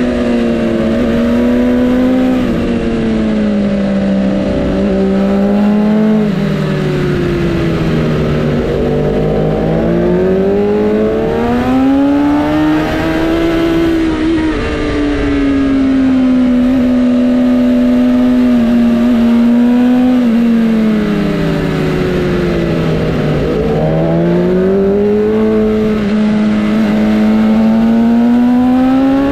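Inline-four sportbike engine running at mid-to-high revs, its pitch sinking and climbing smoothly as it slows and speeds up. It dips about a quarter of the way in, rises to a steady stretch in the middle, then dips and climbs again near the end.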